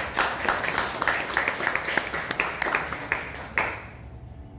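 Audience clapping, a dense patter of hand claps that stops about three and a half seconds in.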